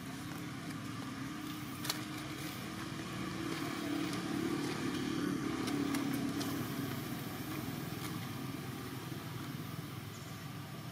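A motor vehicle passing on a road: a low engine hum swells to a peak about five seconds in, then fades away.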